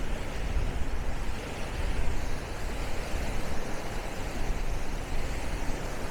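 Wind buffeting the microphone, an uneven low rumble over a steady rushing hiss of open-air noise.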